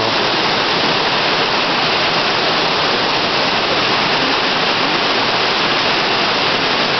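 Rarumanai Falls waterfall pouring: a steady, even rush of water.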